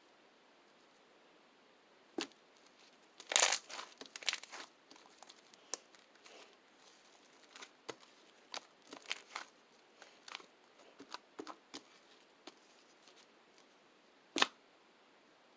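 Irregular crackling and crinkling handling noises: scattered sharp clicks and pops, thickest a little over three seconds in, with one loud crack near the end.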